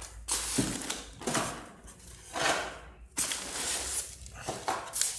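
Handling noise from an action figure and its packaging being picked up and moved: a run of irregular rustling bursts.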